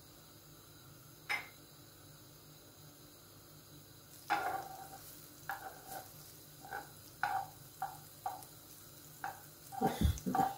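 A spoon scraping and stirring butter as it melts in a small metal pan: short separate strokes about once a second, starting about four seconds in, each with a faint metallic ring. There is a single click about a second in and a louder knock near the end.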